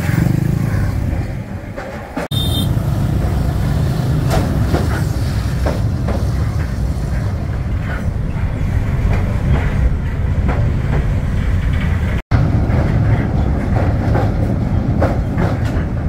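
Old passenger train running, heard from on board: a steady rumble of wheels on rails with scattered clicks and knocks. The sound cuts out briefly about two seconds in and again about twelve seconds in.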